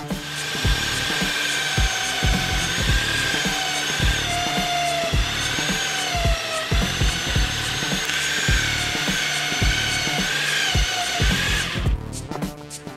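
Bosch PBD 40 bench drill press running, its bit cutting into a clear plastic sheet: a steady high whine whose pitch wavers as the bit is fed in. It stops about a second before the end, then starts again.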